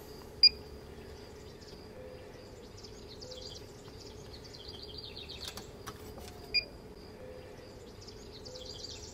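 DigiQ DX2 BBQ temperature controller giving short electronic beeps as its buttons are pressed to set the pit temperature: one about half a second in and another past six seconds. Birds chirp faintly in the background.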